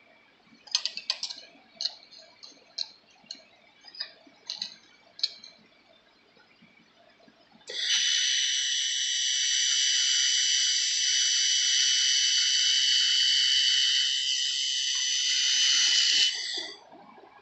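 Handheld 2 kW fiber laser welder with a Qilin V20 head under test: a run of sharp ticks, then a steady hiss of about nine seconds during a continuous weld. The hiss cuts off sharply.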